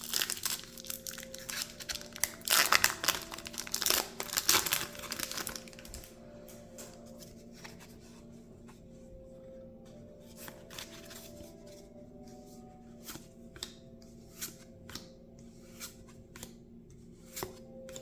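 A trading-card booster pack wrapper being torn open and crinkled for the first several seconds, followed by cards being handled with soft, scattered clicks as they are flipped through. Faint background music runs beneath.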